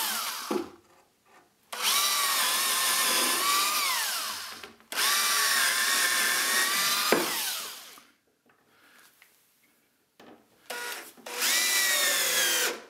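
Cordless drill driving 2-inch deck screws through a plywood joist, in four runs of a few seconds with a short blip before the last. Each run ends with the motor whine dropping in pitch as the screw seats and the motor winds down.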